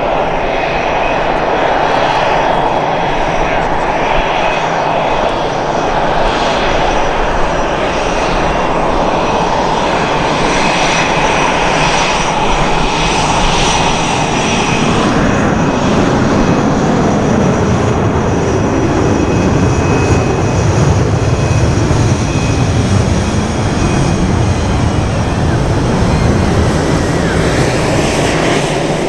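Military jet engines at close range. An F/A-18 Hornet's twin turbofans run at taxi power with a steady whine. Over the second half a deeper jet roar builds, and near the end an F-35 takes off on afterburner.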